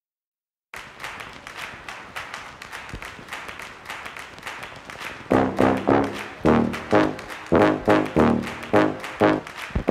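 Background music starts just under a second in with a quiet beat. About five seconds in, louder short notes come in and repeat in a steady rhythm.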